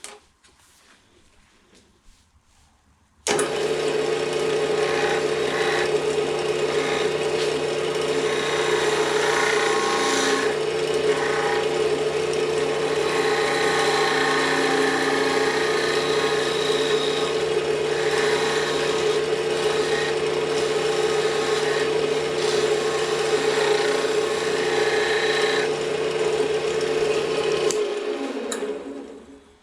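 Wood lathe running with a steady motor hum while a turning tool cuts the spinning fatwood, giving a changing scraping hiss over the hum. It starts abruptly about three seconds in and near the end is switched off and winds down with a falling tone.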